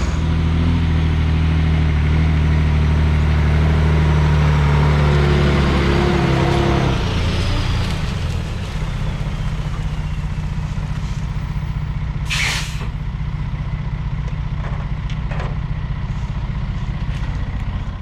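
Heavy diesel engine running hard with a falling whine, then dropping to a lower, quieter idle about seven seconds in. A short, sharp hiss of air comes about twelve seconds in.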